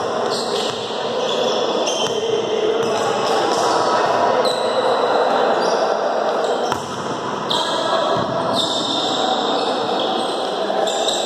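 A volleyball being played in a large, echoing gymnasium: the ball struck by hand during a serve and rally, with hits and landings on the court.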